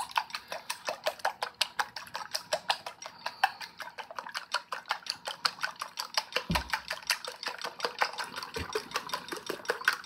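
Wire whisk beating raw eggs in a glass bowl: fast, steady clicking of the wires against the glass, about seven or eight strokes a second, with two soft low knocks in the second half.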